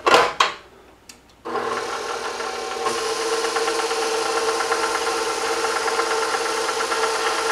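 KitchenAid stand mixer switched on about one and a half seconds in, its motor running steadily with the flat paddle beating melted butter in the steel bowl; the sound gets a little fuller about three seconds in. A couple of clicks near the start as the paddle attachment is handled.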